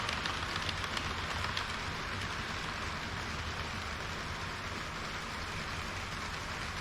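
Model train running on the layout's track: a steady hiss of wheels rolling on the rails, with quick clicks over the rail joints in the first second or so that then die away.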